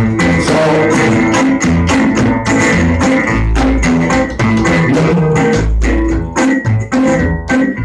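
A resonator guitar and an upright double bass playing an instrumental passage: the guitar picked in a steady rhythm over plucked bass notes.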